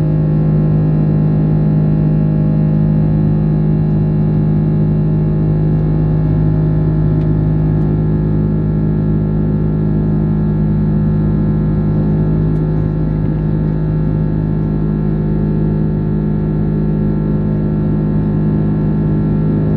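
Airbus A330-300 cabin noise in climb: a steady drone of engine and airflow with a strong low hum from the engines underneath.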